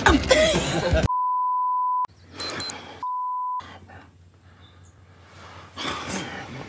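Two electronic bleeps, each a steady pure tone at one pitch: the first about a second long, the second about half a second, with a gap of about a second between them.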